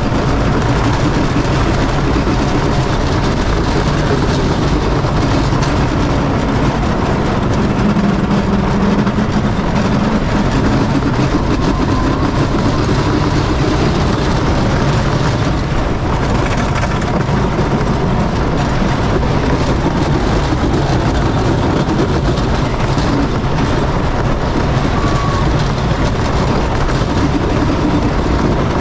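Wooden roller coaster train running at speed along its wooden track: a steady, loud rumble and clatter of the wheels on the rails.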